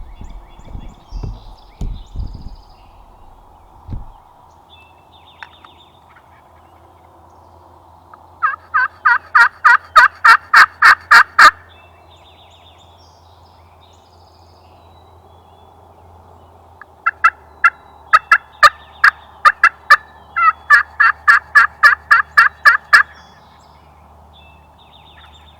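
Turkey calling in two long, loud runs of rapid repeated notes, about five a second, the first lasting about three seconds and the second about six, with a few soft thumps near the start.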